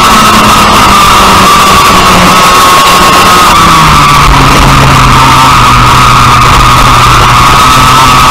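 IAME X30 single-cylinder two-stroke kart engine running high, then dropping in pitch about four seconds in as the kart comes off the throttle and slows for a corner, with music playing over it.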